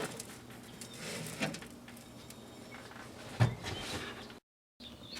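Handling noise of a large whole watermelon being set into a microwave: light knocks and scraping, with one louder thump about three and a half seconds in. A short gap of silence near the end.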